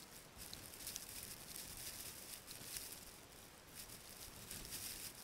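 Faint, gusting hiss of wind, rising and falling in short swells.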